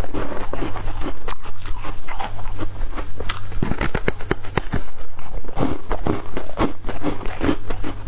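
Biting and crunching into a block of frozen coloured ice, then chewing it, close to the microphone: a quick, irregular run of sharp cracks and crunches.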